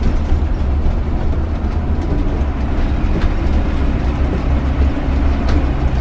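Steady low rumble of a bus-based motorhome driving along a town street, with engine and road noise heard from inside the cab.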